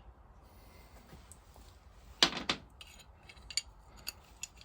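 Hand tools clinking against the metal vaporiser casting of a stationary engine: one louder clank about two seconds in, then a few light clicks near the end.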